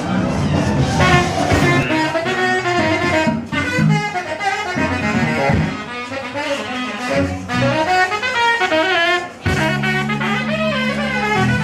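Jazz band playing, with saxophone and brass horns carrying moving melodic lines. Near the end the music dips briefly, then resumes with held low notes.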